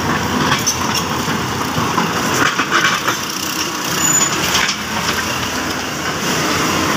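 Hyundai excavator's diesel engine running steadily, with scattered knocks and clatter over it.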